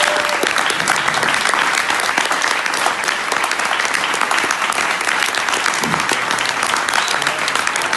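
Audience applauding steadily, a dense crackle of many hands clapping.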